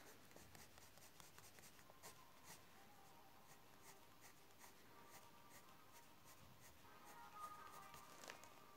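Faint scratching of a felt-tip pen stroking across paper, many short strokes in a row.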